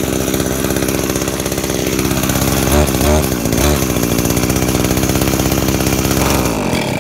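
Small two-stroke engine of an Echo 1260 power pruner pole saw running, its revs dipping and rising a few times about halfway through. Near the end the engine runs down and stops: it is being stalled by covering the intake with the air filter off while giving it throttle, so it starves of air and cuts off.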